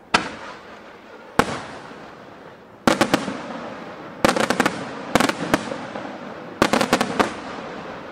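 Aerial firework shells bursting in sharp bangs: two single reports about a second apart, then quick clusters of several bangs, each trailing off in a rolling echo.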